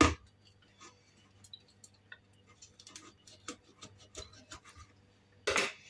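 Kitchen knife cutting into a partly frozen mackerel on a plastic cutting board: a sharp knock as the blade goes in, then light scattered ticks and scrapes, and a louder scrape near the end.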